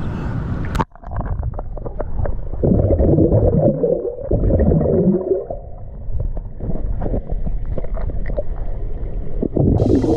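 Muffled sloshing and gurgling of sea water as heard by a camera at or under the water surface, with swirling surges about two and a half seconds in and again near the end.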